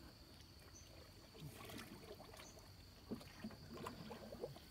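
Faint water splashing and lapping around a small wooden boat on a river: a few soft, irregular splashes from about one and a half to four and a half seconds in.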